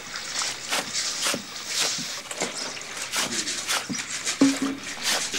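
Clothes being hand-scrubbed in a plastic washtub: a rhythmic rubbing, about two strokes a second. A brief low tone cuts in about four seconds in.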